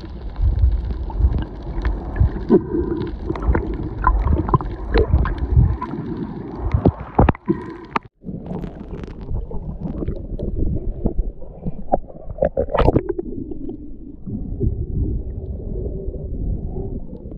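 Muffled underwater sound recorded with the microphone under the sea: a low rumble with bubbling and scattered clicks and crackles. The sound cuts out briefly about eight seconds in, then carries on much the same.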